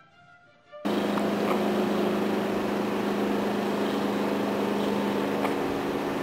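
A loud, steady machine drone with a low hum cuts in suddenly about a second in, like a motor or vehicle running, just after a quiet close of orchestral music.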